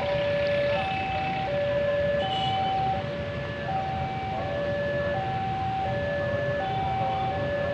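Two-tone electronic warning alarm of a railway level crossing, sounding a higher and a lower tone in turn, each held about three-quarters of a second.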